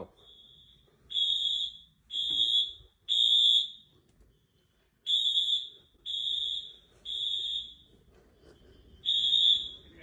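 Wheelock AS fire alarm horn sounding the temporal-three evacuation pattern: three high-pitched beeps about a second apart, a pause, then three more, with another group starting near the end. It is really loud.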